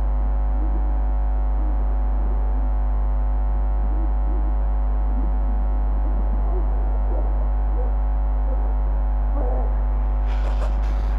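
Experimental drone-noise soundtrack: a loud, steady low hum under layered sustained tones, with faint warbling squiggles drifting through. About ten seconds in, a hiss reaching much higher comes in.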